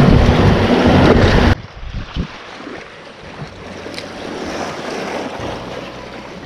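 Wind buffeting the microphone over the sea, loud until an abrupt cut about a second and a half in. After the cut there is quieter wind and lapping water with a few soft knocks, and a low hum comes back near the end.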